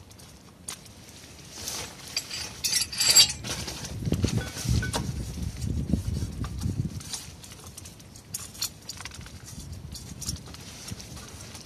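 Light metallic clicks and clinks with handling noise from hands working at the wiring connector of a Mercedes 722.6 automatic transmission from under the car. A brighter jangling clink comes about three seconds in, and a stretch of low scuffing follows between about four and seven seconds.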